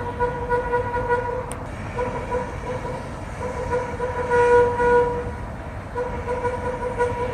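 A horn sounding on one pitch in long held blasts of about three seconds each, with short breaks between them, going on non-stop.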